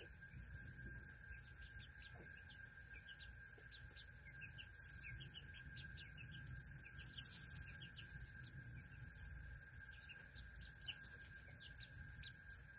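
Faint, rapid high-pitched chirping of small birds, many short chirps, thickest in the middle. A steady high-pitched whine runs behind them.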